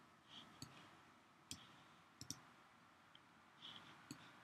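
About six faint, sharp clicks from a computer mouse or trackpad, spread out with a quick double click a little past two seconds, over near silence.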